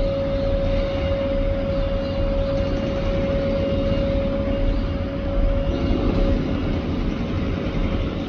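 Taiwan Railways EMU800 electric multiple unit running: a steady high hum with low rumble beneath, holding an even pitch throughout.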